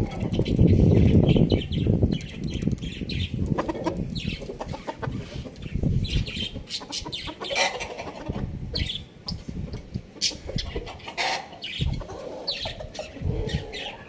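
Roosters clucking with short, scattered calls, after a loud burst of low noise in the first couple of seconds.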